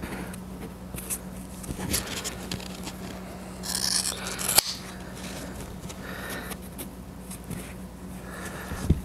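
Scissors cutting foam rubber to trim a patch piece, with small handling clicks; the loudest cut is a rustling stretch about four seconds in that ends in a sharp click. A steady low hum runs underneath.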